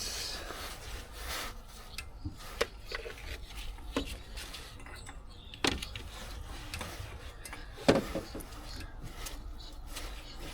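Hand work on truck parts: rubbing and scraping with scattered sharp knocks and clicks, two louder knocks about six and eight seconds in.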